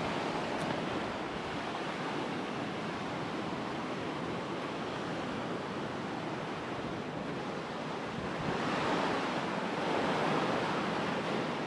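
Ocean surf breaking and washing up on a sandy beach: a steady wash that swells louder a couple of times near the end.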